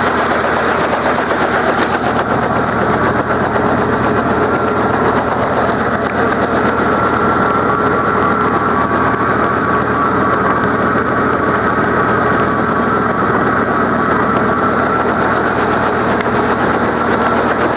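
Helicopter engine and rotor noise during flight: a loud, steady roar with a faint higher whine through the middle.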